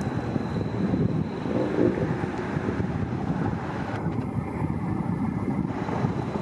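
Steady noise of a vehicle on the road, with wind rumbling on the microphone.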